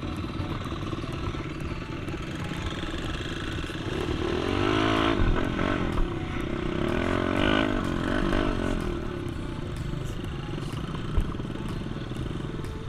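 An engine running steadily, swelling and shifting in pitch between about four and nine seconds in.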